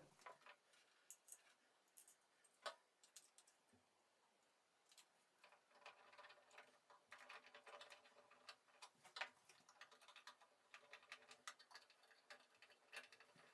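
Near silence with scattered faint clicks and ticks: a screw being driven by hand to fix a plastic stand leg to the bottom of a flat-screen TV, with the odd slightly louder click.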